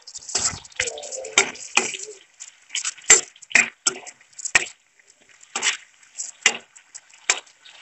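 Metal spoon scraping and knocking against a wok in irregular strokes, stirring chopped tomato and onion in hot oil. The frying oil gives a faint sizzle underneath, plainest near the end.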